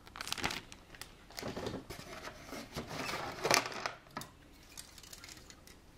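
Thin clear plastic bag crinkling as it is handled with a tree of chrome-plated model kit parts inside, in irregular crackly rustles that are loudest about three and a half seconds in and stop about four seconds in.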